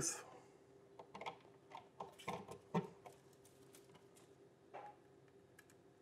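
Faint, scattered clicks and taps as a USB cable plug is pushed into the USB port of a wall outlet and a smartphone is handled, over a faint steady hum.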